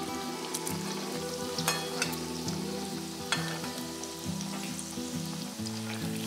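Chirote, a layered maida pastry, sizzling and crackling as it deep-fries in hot oil in a steel kadhai. A few sharp clicks come from the slotted frying spoon against the pan.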